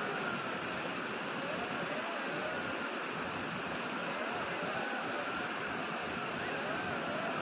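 Wolves howling faintly, several wavering howls rising and falling in pitch, over a steady rushing noise.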